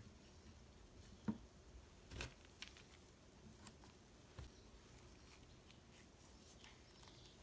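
Faint light taps and small rustles as small decorations are handled and set down on a tray, with one sharper tap about a second in and a few softer clicks after it.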